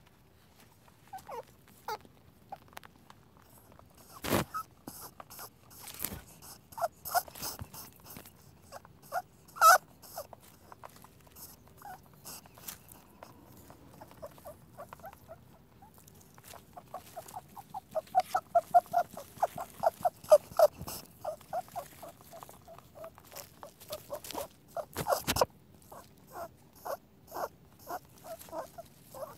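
Rabbit nibbling grass: a busy, irregular series of short crunchy clicks and small squeaky notes, quickening into a fast run of rapid chews about two-thirds of the way through. Two louder crackles stand out, one about four seconds in and one near the end.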